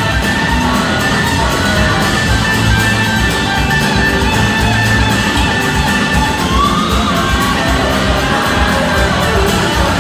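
Live rock band playing at full volume: electric guitars over drums and bass.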